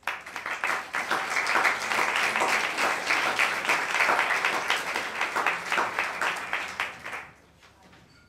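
Audience applauding: many hands clapping, starting suddenly, then thinning and dying away after about seven seconds.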